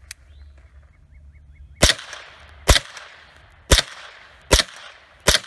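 Smith & Wesson M&P 15-22 semi-automatic rifle firing five .22 LR shots, about one a second, starting about two seconds in. Each is a sharp crack with a short echo trailing it.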